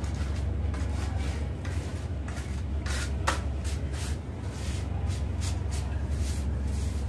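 A trowel and gloved hand scraping and rubbing white powder across glazed floor tiles, heard as a run of short scrapes with one sharper tick about three seconds in. A steady low hum lies underneath.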